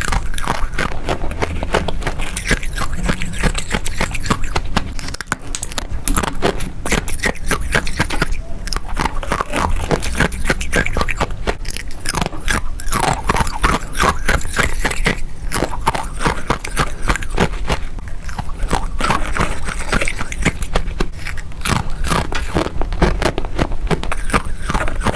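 Freezer frost bitten and chewed close to the microphone: a fast, unbroken run of crisp crunches.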